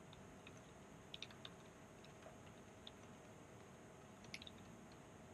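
Faint scattered clicks of a laptop keyboard over near-silent room tone: a few clicks about a second in, a single one near the middle and a small cluster past four seconds.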